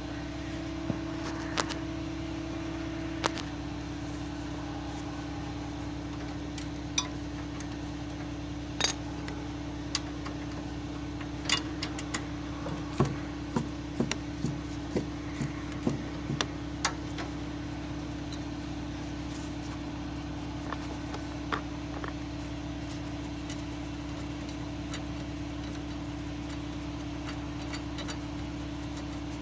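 Scattered metallic clinks and taps of a wrench on the bolts of a snow blower's belt guard, frequent in the first half and then dying out, over a steady background hum.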